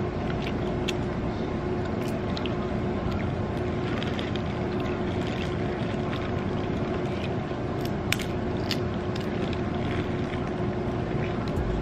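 A steady background hum with a faint tone in it, under scattered clicks and crinkles as seafood is peeled and handled in clear plastic boil bags, with one sharper click about eight seconds in.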